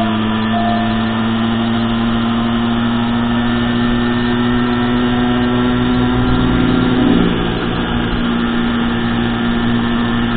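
Small motorcycle engine running steadily at cruising speed, with road and wind noise. The engine's pitch rises a little about six to seven seconds in, then drops back.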